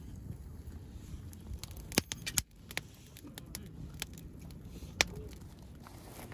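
Campfire of freshly lit split-wood kindling and a log burning, with scattered sharp crackles and pops, the loudest about two seconds in and at five seconds, over a low steady rumble.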